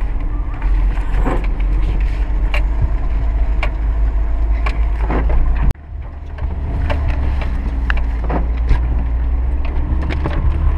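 Inside a car driven slowly over a rough, muddy dirt track: a steady low engine and road rumble, with frequent irregular knocks and rattles from the body and suspension over the bumps. The sound cuts off abruptly near the middle, then resumes.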